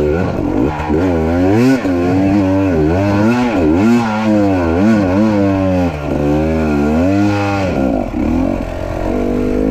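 Enduro motorcycle engine revving up and down over and over as the throttle is worked, settling to a steadier note near the end.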